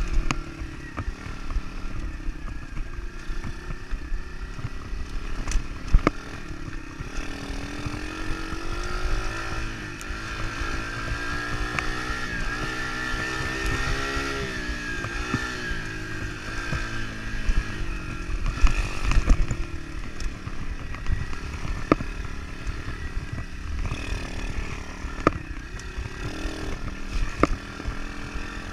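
A 110cc pit bike's single-cylinder engine running under a rider, its pitch rising and falling with the throttle and climbing to its highest about halfway through. Heavy low rumble runs underneath, with a few sharp knocks.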